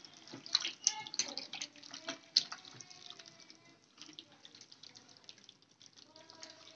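A hand squishing and kneading raw mutton with spices, oil and yogurt in a steel bowl: irregular wet squelches and sticky clicks, the sharpest about half a second and just under 2.5 s in.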